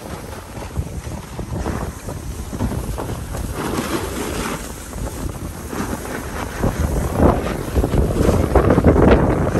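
Wind rushing over the microphone of a camera carried by a moving snowboarder, mixed with the hiss and scrape of the snowboard sliding and carving over packed snow. It grows louder in the last few seconds.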